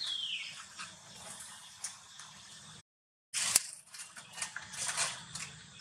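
Baby monkey mouthing and sucking on a pacifier: soft wet smacks and small scattered clicks, with one sharp click a little past the middle. A short high squeak falling in pitch opens it.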